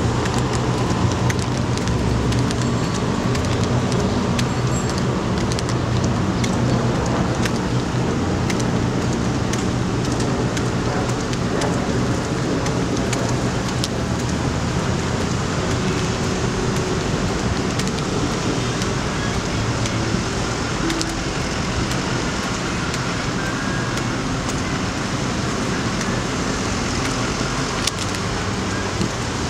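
Steady city traffic noise, with scattered faint clicks throughout.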